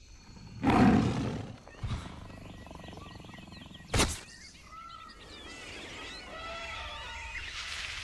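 Intro sound effects: a loud low rumble about a second in, a single sharp hit at about four seconds, then a run of high squeaks and chirps with a swell building near the end.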